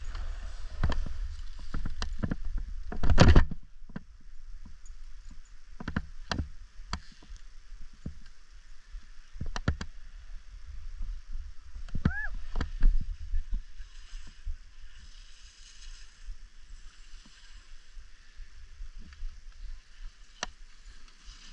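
Wind buffeting the microphone over the scrape of edges sliding across snow, with scattered knocks and one loud thump about three seconds in.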